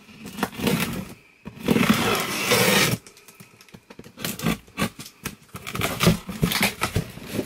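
Scissors slitting the packing tape on a cardboard box. About a second and a half in comes a loud tearing scrape lasting over a second, followed by short scrapes and knocks against the cardboard.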